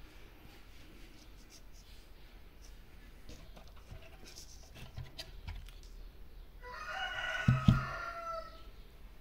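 Light clicks and rustles of wires being handled, then a rooster crows once, for about a second and a half, near the end. Two dull knocks, the loudest sounds, come in the middle of the crow as the speaker is handled.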